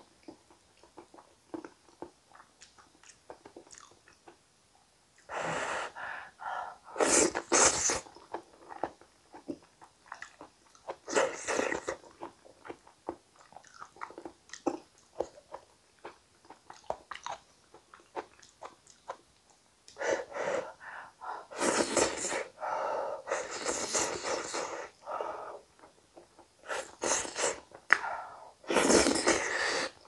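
Close-miked eating of a soft, wet potato and tomato gratin: chewing and mouth noises in irregular noisy bursts with quiet gaps between.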